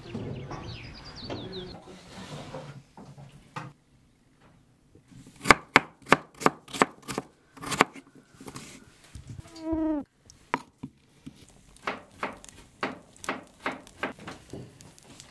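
Knife chopping raw potato on a wooden cutting board: a run of sharp strikes, about two a second, starting a few seconds in. A few bird chirps come at the start, and a short falling squeak about two thirds of the way through.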